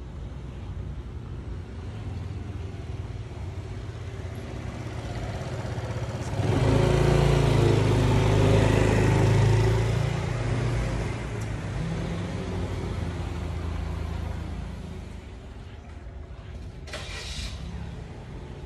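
A car passes on the road, swelling loudest about six to ten seconds in and fading away, over a steady low rumble.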